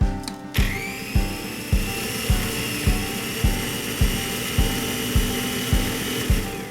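Electric blender motor running with a high whine. It spins up about half a second in, runs steadily, and stops abruptly just before the end. Background music with a steady beat plays underneath.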